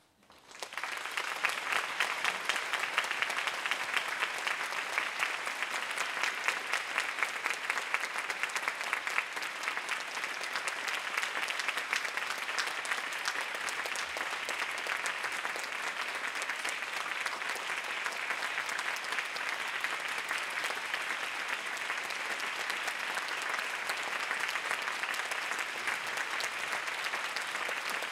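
Theatre audience applauding: clapping breaks out suddenly from silence, swells within about a second, then goes on steadily.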